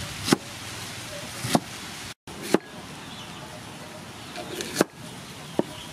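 Cleaver chopping cabbage on a thick wooden chopping block: about five sharp chops at uneven intervals.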